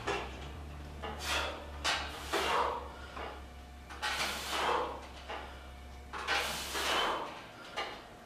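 A man breathing hard while doing pull-ups, with a forceful rushing breath every second or two as he works through the reps.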